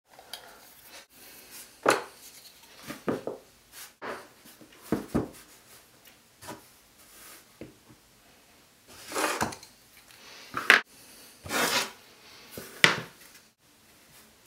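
Small objects, among them a glass reed diffuser, a book and a phone, being set down and slid on a wooden desktop: a string of separate knocks and clacks with a few longer scraping rubs, broken now and then by abrupt dead gaps.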